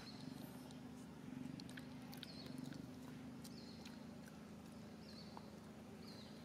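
Faint outdoor ambience: a steady low hum, with a short high chirp that drops at the end recurring every second or so in the second half, and a few soft clicks.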